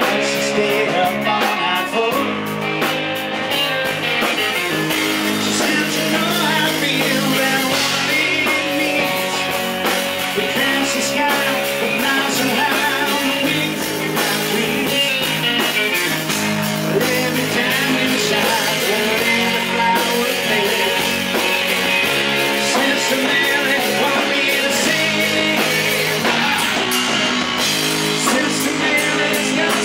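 Live rock band playing: electric guitars over bass and a drum kit. It is picked up on stage from the amps and monitors, not the mixed PA.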